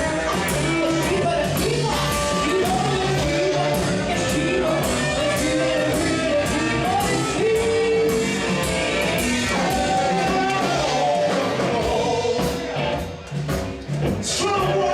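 Live band music: a singer over guitar in a rock-and-roll groove, thinning briefly near the end.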